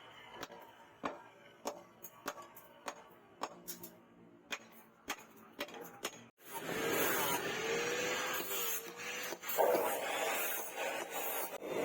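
Sharp, irregular taps of metal on metal, roughly two a second, like light hammer blows at the forge. About six seconds in they give way abruptly to a steady rushing noise with a faint wavering tone, which grows louder near the end.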